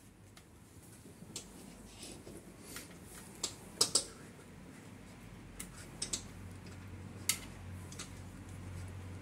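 Scattered sharp clicks and taps, a cluster of the loudest about four seconds in and more a few seconds later, over a faint low hum.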